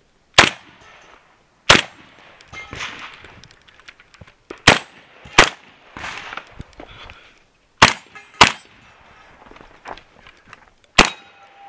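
Seven shots from a Kalashnikov-pattern semi-automatic 12-gauge shotgun: single shots with pauses, and two quick pairs about half a second apart in the middle, each crack followed by a brief echo. Fainter clatter and rustling fill the gaps between shots.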